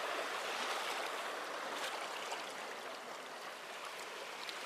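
Seawater washing and lapping steadily against the breakwater rocks.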